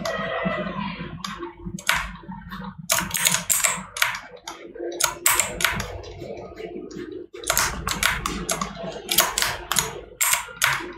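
Computer keyboard and mouse clicking in irregular runs of sharp clicks, over a low steady hum.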